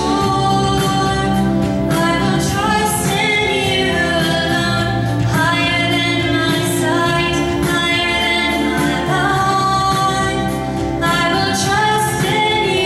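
Mixed youth choir singing with long held notes, female voices to the fore through handheld microphones.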